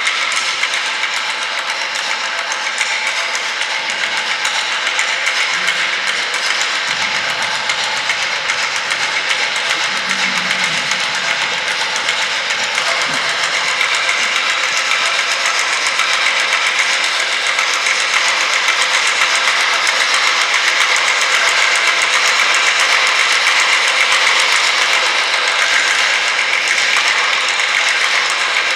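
Contemporary percussion piece played on objects at a table: a dense, continuous clattering, hissing texture with several held high tones, swelling slightly in the second half.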